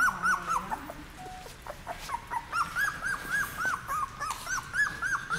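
Newborn Border Collie puppy, about two and a half weeks old, crying in short, high squeaks that rise and fall in pitch. A few come at the start, then after a pause a steady string of them at about four a second.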